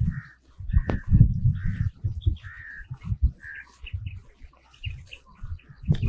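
Birds calling, short harsh calls repeated about once or twice a second, over a louder low rumbling that comes and goes.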